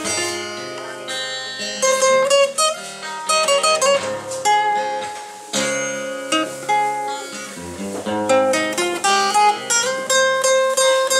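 A plucked string instrument played solo: a steady run of picked notes and chords, each struck sharply and left to ring.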